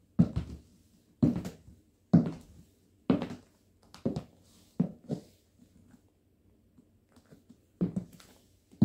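Stiletto high heels clacking on a wood floor, one step about every second, with a lull of a couple of seconds before the steps resume near the end.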